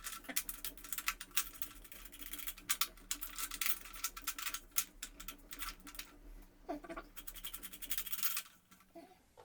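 Rapid, irregular scratching and clicking of router-table parts being handled and worked into place. It stops about eight and a half seconds in.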